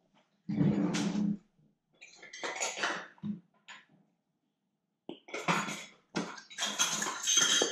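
Plastic bottles and containers being handled and knocked on a table, in several short bursts of clatter.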